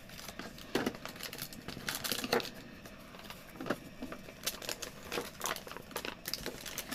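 Small plastic wrapper packets crinkling and rustling as they are handled, with irregular light clicks and taps of small plastic toy parts.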